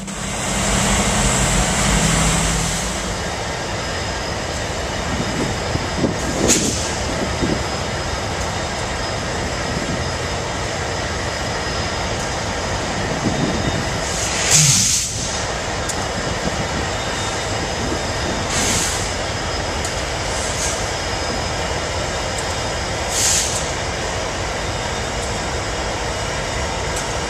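Norfolk Southern and BNSF diesel freight locomotives running with a steady rumble, with a few short hisses over it, the loudest about halfway through.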